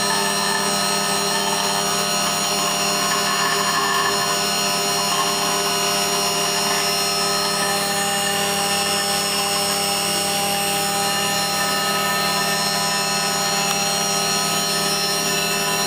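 Haas CNC mill cutting a winch drum turned on a 4th-axis rotary: a steady machining sound with several steady whining tones, one of them changing pitch about halfway through.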